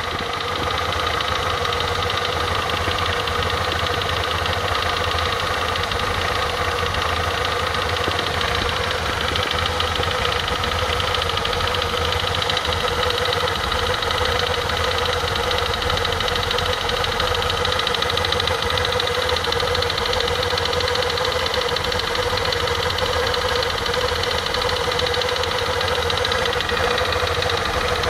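KYMCO Nikita 300 scooter's single-cylinder engine running steadily with an abnormal noise from the belt-drive transmission. It sounds like the drive belt hitting its casing, but the owner found after removing the whole transmission that this was not the cause.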